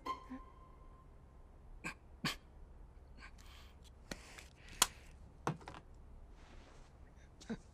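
A feverish man coughing: several short, separate coughs, with breathing between them.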